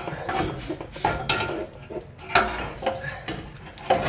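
Irregular metallic knocks and clanks from a Subaru Impreza's original exhaust mid-pipe, which carries a catalytic converter, as it is lifted by hand and pushed onto its rubber hanger.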